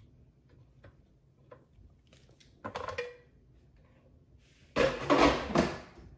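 Handling noises: a short scraping clunk about three seconds in, then a louder clattering rustle near the end.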